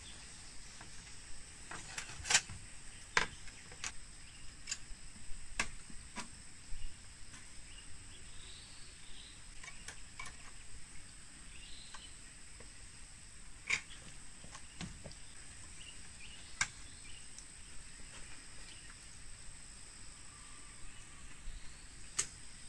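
Insects chirring in a steady high, even drone, with scattered sharp knocks and clicks a few seconds apart.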